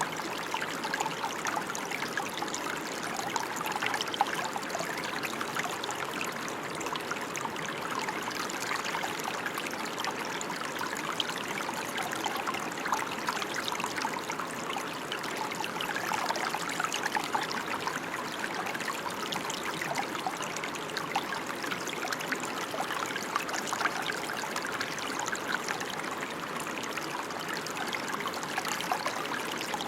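Steady rain: a continuous hiss of water with a dense scatter of small drops, even throughout.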